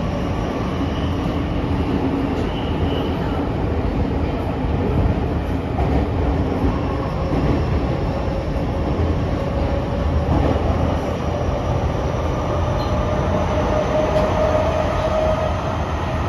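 Tokyo Metro 05 series subway train running through the tunnel, heard from inside the car: a steady rumble of wheels on rail with a thin whine that rises slightly in pitch toward the end.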